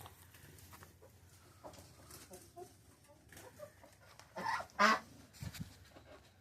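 Poultry in a coop: a few soft, short clucks, then a loud double call about four and a half seconds in.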